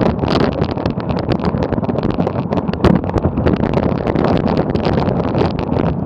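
Bicycle coasting slowly down a steep snow-covered trail: tyres crunching through the snow and the bike rattling, picked up close on a camera mounted to the rider or bike, as a dense continuous crackle.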